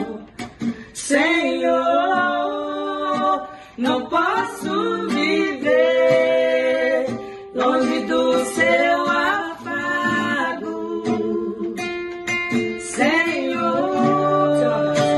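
A woman singing a worship song over an acoustic guitar, with the guitar strings plucked and strummed under the vocal line.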